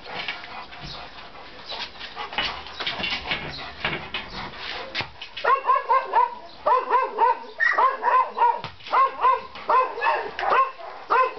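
Newfoundland dog whining and yelping in short cries that rise and fall in pitch, about two a second, starting about halfway through. Before that, a rustling, scuffling noise.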